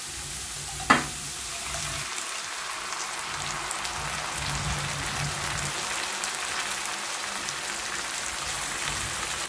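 Tomato sauce poured into a hot frying pan of fried onion and garlic, the oil sizzling steadily under it. A single sharp tap about a second in.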